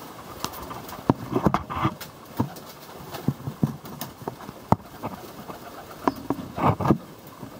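Young Serbian highflyer pigeons in a loft flapping their wings. There are scattered sharp wing claps and short flurries of wingbeats, the loudest about a second and a half in and again near the end.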